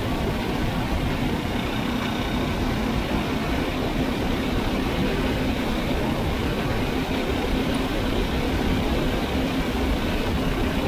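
6.5 hp Tecumseh single-cylinder engine with its governor removed, running steadily at an even pitch while driving the Murray Kilowatt, with loud noise from the machine under way.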